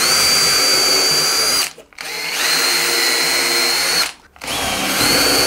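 Cordless drill-driver with a small twist bit boring holes through a wooden roof batten: three runs of a steady, high motor whine with short stops between them, the second spinning up gradually at its start.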